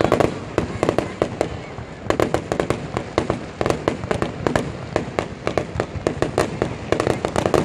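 Fireworks going off in rapid strings of sharp crackling pops, coming in volleys every second or two.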